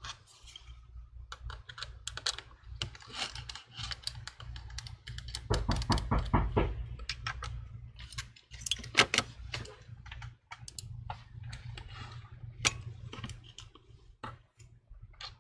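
Irregular small clicks and taps from handling an opened iPhone 11, its display panel and small repair tools on a hard work surface. The clicks come thickest about halfway through.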